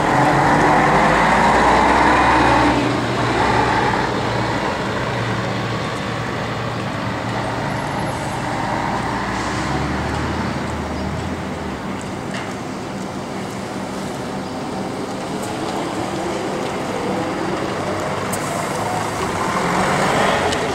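Diesel buses pulling away one after another, their engines loudest in the first few seconds. Near the end a Volvo B10BLE low-floor bus drives close by and its engine grows louder.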